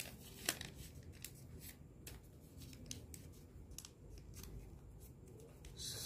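Small slips of paper being folded and creased by hand, a faint irregular crinkling with scattered soft clicks and a brief louder rustle near the end.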